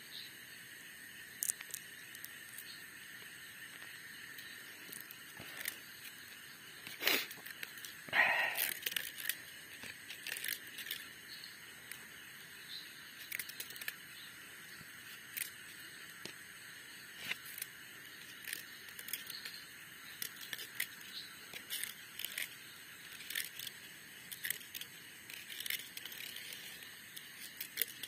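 Night insects trilling steadily, with scattered sharp clicks and rustles as nylon fishing line is handled and unwound from a plastic hand spool. A brief louder sound comes about eight seconds in.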